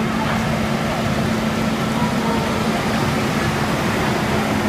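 Fire engine running steadily with its pump engaged: a constant low hum under a rushing noise.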